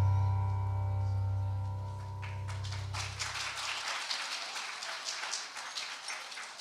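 The final chord of a handbell piece rings and slowly dies away, its low notes fading out about four seconds in. Audience applause begins about two and a half seconds in and carries on as the chord fades.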